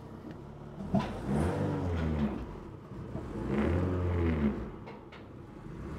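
Ferrari engine in an Alfa Romeo 105 coupé given two short throttle blips, the pitch rising and falling each time, as the car is inched up the ramps onto a trailer. A sharp knock comes at the start of the first blip.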